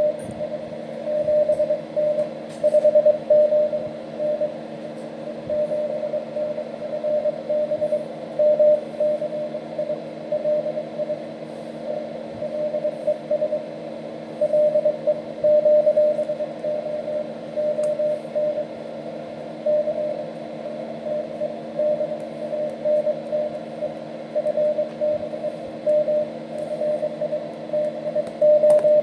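Morse code (CW) tone from a homebrew SDR transceiver, one steady pitch keyed on and off in dots and dashes over constant radio hiss.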